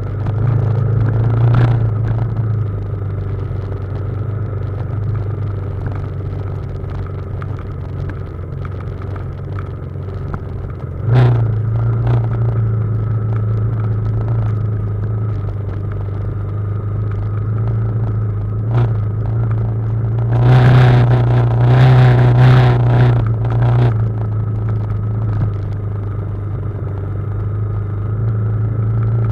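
BMW G310GS single-cylinder motorcycle engine running at steady low revs on a downhill dirt trail. The bike rattles and knocks over rough ground: single knocks about a second and a half in and about eleven seconds in, and a run of clattering over a few seconds past the middle.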